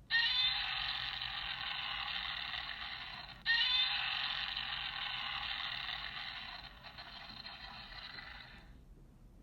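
Godzilla's roar played through the tinny built-in speaker of a Bandai S.H.MonsterArts 1989 Heisei Godzilla figure, twice: once at the start and again about three and a half seconds in, each opening with a shrill screech and trailing off slowly.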